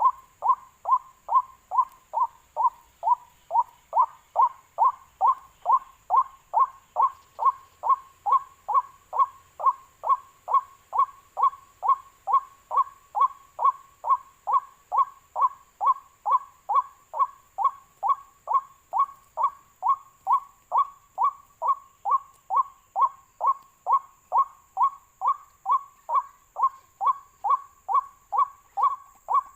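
Waterhen call played back as a trap lure: one short note repeated very evenly, about two a second, each note dropping in pitch.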